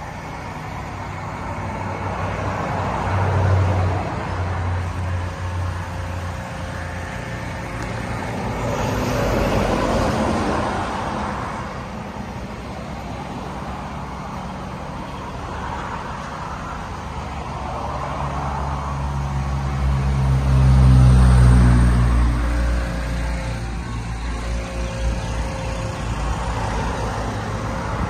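Road traffic passing by: cars going past one after another, their tyre and engine noise swelling and fading. The loudest pass, a deep engine rumble, comes about two-thirds of the way through.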